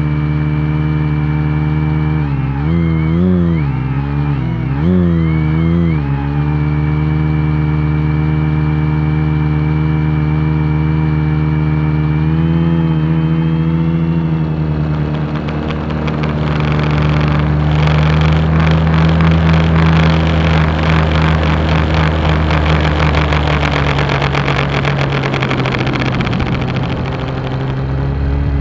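Multirotor drone's motors and propellers humming, heard from the onboard camera. A few seconds in, the pitch wavers up and down several times, then holds steady. From about halfway the sound turns louder and noisier with a rushing flutter, which eases near the end.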